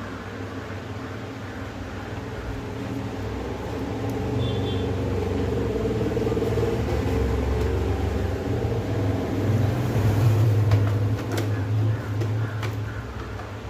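A steady low mechanical hum that grows louder, peaks about ten seconds in and eases off, with a few light clicks near the end.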